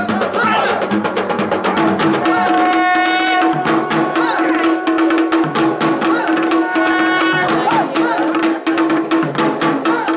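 Traditional Sri Lankan drum ensemble playing a fast, dense rhythm. From about two seconds in a held drone note sounds under the drums, and twice a higher melodic line rises over it.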